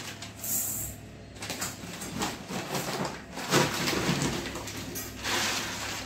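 Uncooked rice being scooped from a plastic sack with a small steel cup and poured into a steel bowl: several separate grainy pours, with the plastic sack rustling.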